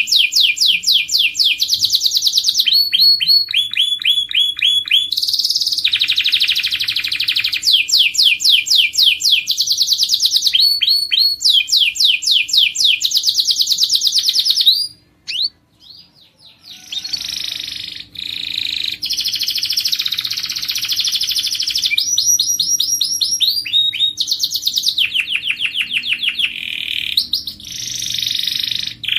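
Domestic canary singing: fast trills of rapidly repeated high notes, switching from one trill to another every second or two. The song breaks off briefly about halfway through, then resumes.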